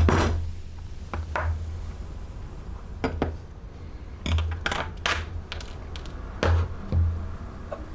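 Scattered clicks and light knocks of leatherworking tools and hardware being handled on a workbench, with a quick cluster of them a little past the middle.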